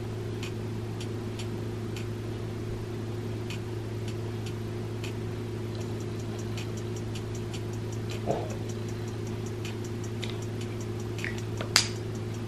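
Regular ticking, about two ticks a second, over a steady low hum, with a fainter, quicker ticking joining in about halfway. There is a brief soft knock near the end.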